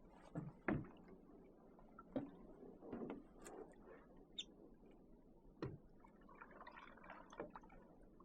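Faint, scattered knocks and scuffs, about seven of them spread irregularly, with soft rustling in between.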